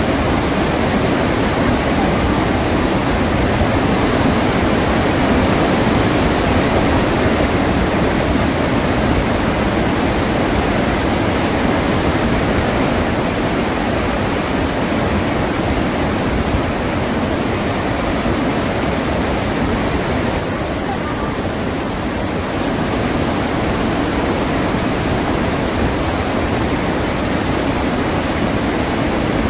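Iguazu Falls: a large waterfall's water pouring down in a steady, dense rush.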